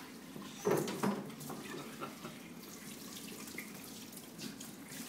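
Cooled beer wort running steadily from a brew kettle's valve through a plastic hose into a glass carboy, pouring into the sanitizer foam inside. Two brief knocks come about a second in.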